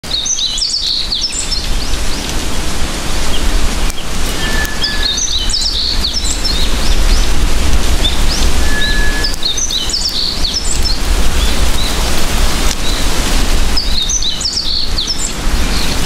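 Birds singing in a palm grove: a bright chirping phrase comes back four times, about every four to five seconds, with a short whistled note twice between. Under it runs a steady rush of wind with a low rumble.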